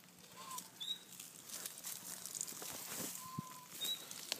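Galápagos giant tortoises feeding on leaves: soft crunching, crackling and leaf rustling, with two short whistled calls, one about half a second in and one around three seconds in.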